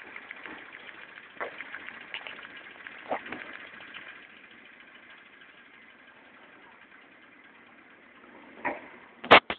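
Jensen toy steam engine running on low pressure under a Bunsen burner: a fast rhythmic clatter over a steam hiss that settles to a steadier hiss about four seconds in. A few loud knocks near the end.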